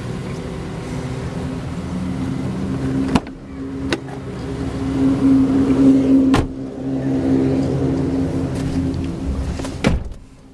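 2008 Chevy Silverado's 5.3-liter V8 idling steadily, growing louder about halfway through, with a few sharp clicks or knocks. The engine sound drops away near the end.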